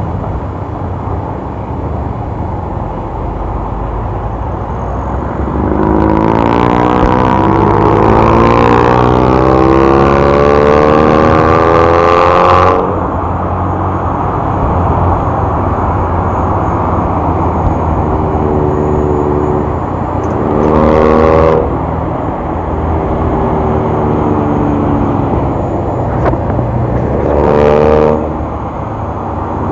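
Vehicle engine revving up three times, its note climbing in pitch for several seconds and then cutting off suddenly each time, over steady road and wind noise while riding on a motorcycle.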